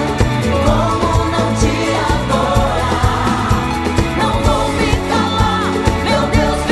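Gospel pop worship song played by a full band of drums, bass, keyboards and guitars, with a sung melody line over it.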